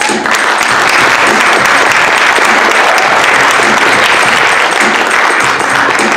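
Audience applauding. The clapping starts suddenly and stays at an even level.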